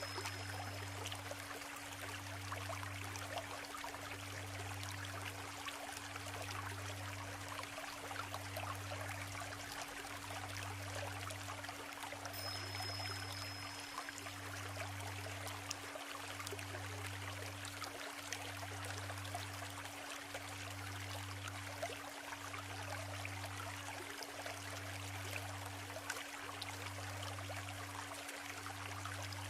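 Babbling of the Isuzu River, a shallow stream running over stones, steady throughout. Underneath lie a steady low hum and a deeper tone pulsing about once every two seconds, with a brief high whistle about 12 seconds in.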